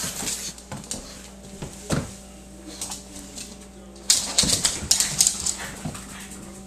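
A small dog scrambling on a hard floor, its claws clicking and skittering, with a few soft thumps; a burst of rapid clattering about four seconds in.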